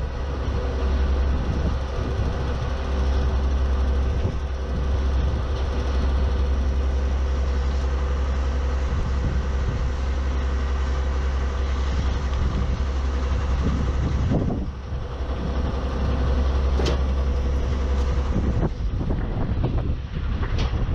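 Engine of a truck-mounted water-well drilling rig running steadily with a deep drone, while casing is set in the hole. A few sharp knocks and clanks come in the last few seconds.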